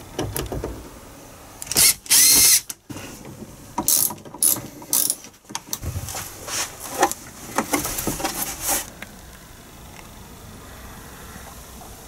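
Plastic door-pillar trim in a van being worked loose and handled: a loud creaking squeal about two seconds in, then a run of sharp clicks and knocks that stops about nine seconds in.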